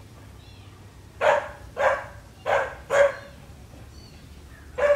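A dog barking: four sharp barks between about one and three seconds in, and one more just before the end.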